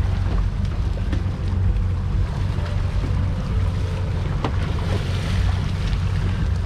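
Steady low rumble of wind buffeting the microphone over the boat's twin outboard motors, with sea water washing along the hull.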